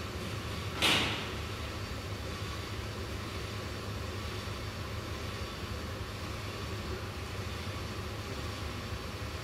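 Steady low hum and background noise of a workshop, with one short loud hiss about a second in.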